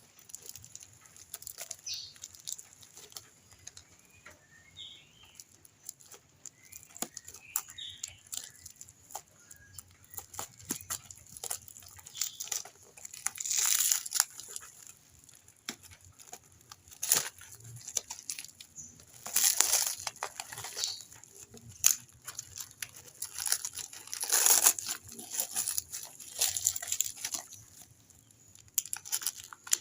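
Doll packaging being handled and opened: plastic crinkling and tearing in irregular bursts, with sharp clicks and taps, loudest in a few longer rustles.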